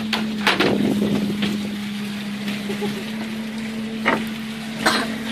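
Crab-fishing boat's machinery humming steadily at one low pitch over a hiss of water, with several short sharp knocks: near the start, about a second in, and twice near the end.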